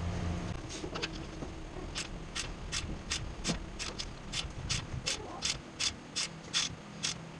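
A hand ratchet wrench clicking in an even run, about three sharp clicks a second, as a bolt is turned during suspension work.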